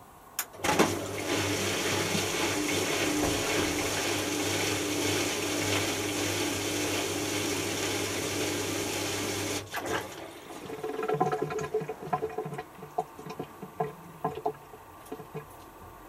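Washing machine drain pump starting with a click and running for about nine seconds, water rushing and gurgling through it over a steady electric hum, then stopping abruptly. A scatter of light clicks and knocks from the machine follows. This is the pump-out at the end of the final spin.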